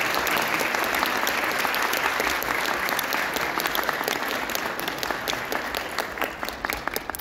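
Audience applauding: many people clapping together, thinning to scattered separate claps and dying away near the end.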